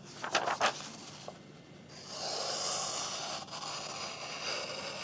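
A few faint scrapes, then a steady rubbing hiss from about two seconds in.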